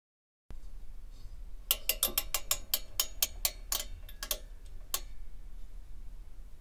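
Clockwork mechanism of a miniature 19th-century carousel being wound by turning its top finial: a run of sharp ratchet clicks, about five a second, that stops about five seconds in.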